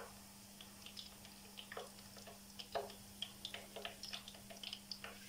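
Hot frying oil crackling faintly in scattered small ticks as fried chicken nuggets are held above it in a wire skimmer, oil dripping back into the pan, over a faint steady hum.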